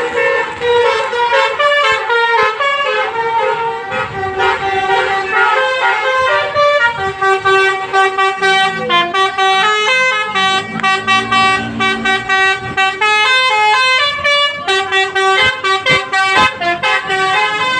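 Bus telolet horn, a multi-tone musical air horn, playing a long tune of stepped notes, many of them short and rapid, with brief breaks between phrases.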